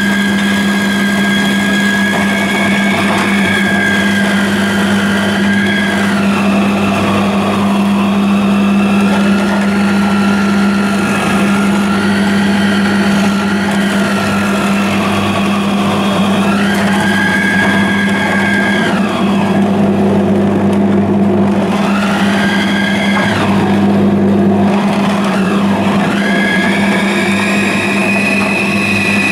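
Zelmer Kasia food processor running continuously, grating white radish pushed down its feed tube. A steady motor hum carries through, and its higher whine drops in pitch several times as food is pressed into the disc and the motor is loaded, then rises again as it frees.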